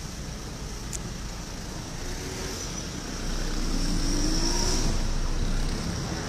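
Car engine and road noise heard through an open car window while driving, swelling about three seconds in as the engine pitch rises with acceleration.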